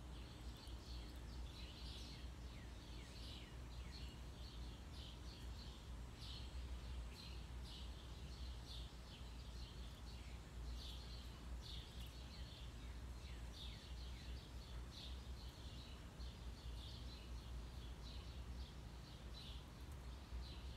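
Small birds chirping over and over, short high chirps with a few quick down-slurred notes, over a steady low rumble.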